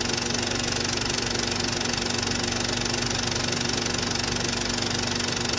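Cine film projector running: a steady mechanical whirr with a fast, even clatter from the film advance.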